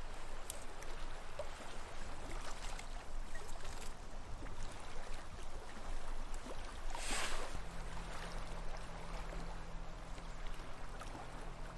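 Quiet riverside ambience at a wood campfire: a steady rush of flowing water with small faint crackles from the fire. There is a brief hiss about seven seconds in, and a low steady hum joins from then on.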